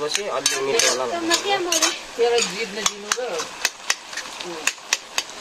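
Steel ladle stirring food in an iron karahi, scraping and clinking against the pan in frequent sharp clicks, with food sizzling in the hot oil. A person's voice talks over the first few seconds.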